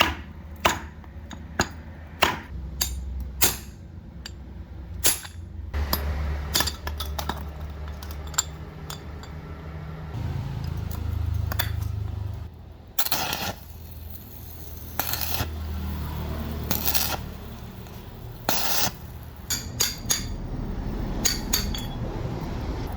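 Small metal parts and hand tools clinking and scraping on a work surface, with a low steady hum underneath and a few short noisy bursts around the middle.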